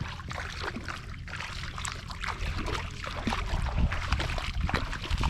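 Water splashing and trickling in short irregular bursts, over a low rumble that grows louder near the end.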